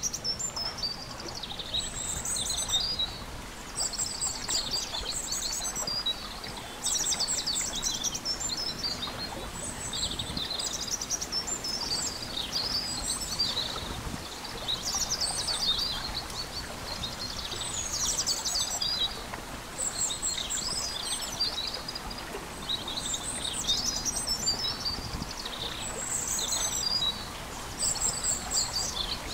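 Songbirds singing and chirping in repeated high, bright phrases a second or two long with short gaps between them, over a steady faint background hiss.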